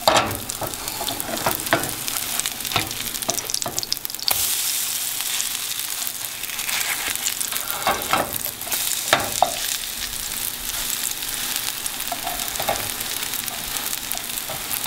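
Zucchini pancakes sizzling in hot oil in a nonstick frying pan, with short scrapes and taps of a spatula as they are turned. The sizzle gets louder about four seconds in.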